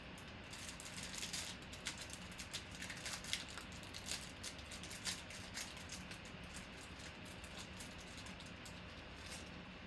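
Faint crinkling and crackling of a trading card pack's plastic wrapper being peeled and torn open by hand, a quick run of crackles over the first several seconds, then quieter handling as the cards are slid out.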